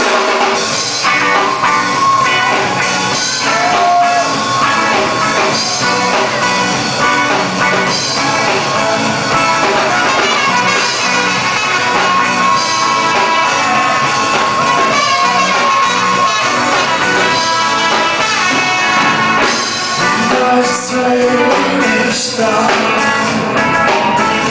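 Live band playing a rock song with trumpets and electric guitar, a trumpet holding a long note midway and a male voice singing near the end.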